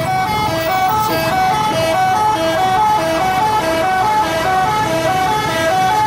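Indonesian bus 'telolet' musical horn playing a repeating tune, loud, stepping back and forth between a higher and a lower note a few times a second.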